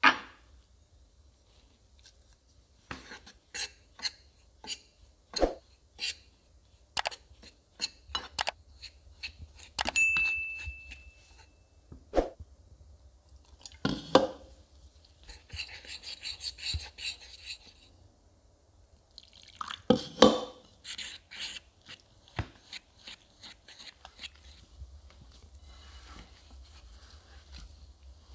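A metal fork clinking and scraping against a ceramic bowl while stirring semolina and cocoa powder with water, in irregular taps with one ringing briefly about ten seconds in. Near the end, soft rustling as gloved hands knead the crumbly dough.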